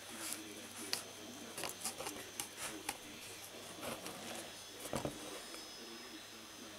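Faint clicks and taps of fingers handling and poking a small painted object, with a slightly heavier knock about five seconds in.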